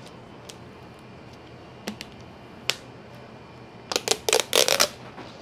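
Raisins being shaken out of a plastic container into a stainless steel mixing bowl of cut croissants: a couple of single clicks, then a quick rattling run of clicks about four seconds in.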